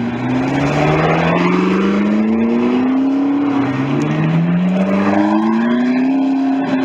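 A performance car's engine accelerating hard: the note climbs steadily, drops at an upshift about three and a half seconds in, then climbs again through the next gear.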